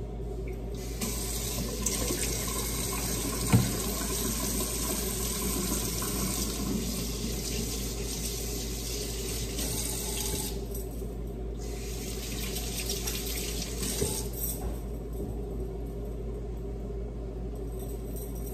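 Kitchen tap running into a sink, stopping for about a second near the middle and running again for a few seconds before easing off. A single knock sounds a few seconds in.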